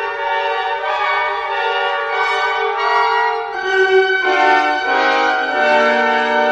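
Instrumental ensemble music: sustained chords in a slow, smooth passage, the bass line stepping down in the second half.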